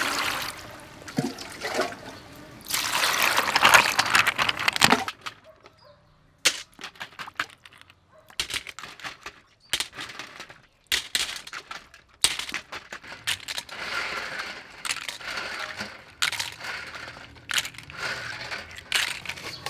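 Water poured from a jug splashes over a bowl of sea snails as they are washed by hand. From about six seconds in, a long run of clicks and clatters follows as the hard shells knock against each other and against a metal colander.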